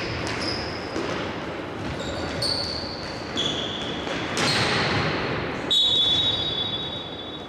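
Indoor hockey play in a sports hall: sharp knocks of sticks and ball, repeated every second or so and echoing in the hall, mixed with short high-pitched squeals. The loudest squeal starts about three-quarters of the way in.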